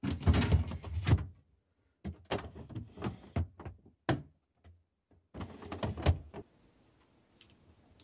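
Plastic refrigerator drawers sliding out and being pushed back in, a sliding rattle with knocks, in several bursts with short pauses between them.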